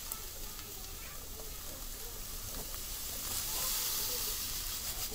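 Milk pouring in a thin stream from a plastic bag into a large aluminium pot of liquid kulfi mix, a steady splashing hiss that grows a little louder past the middle.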